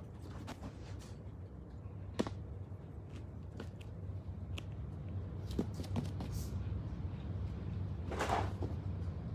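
Rabbits moving about on foam floor mats and wooden hideouts: scattered light taps and knocks, one sharper knock about two seconds in, and a brief scuffling rush near the end as a rabbit dashes off, over a steady low hum.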